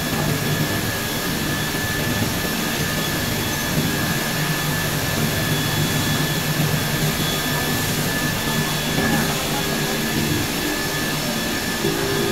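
Plastic sheet extrusion line running: a steady machine drone of motors and fans, with a low hum and a thin high whine over even whooshing noise.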